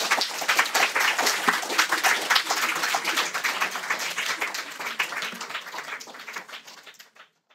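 Audience applauding with many hands clapping at the end of a lecture. The applause fades away over the last couple of seconds and stops shortly before the end.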